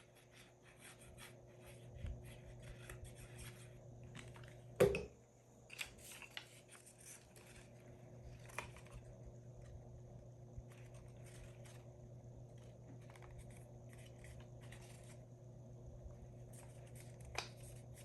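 Paper pages being handled, lined up and pressed together while they are glued: many soft rustles and light scrapes, with one sharper knock about five seconds in.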